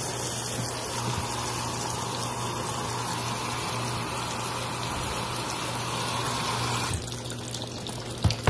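Water spraying at low pressure from a pull-out faucet spray head into a washing machine tub, filling it over wet clothes: a steady rush. The rush thins and quietens about seven seconds in, and a sharp knock comes near the end.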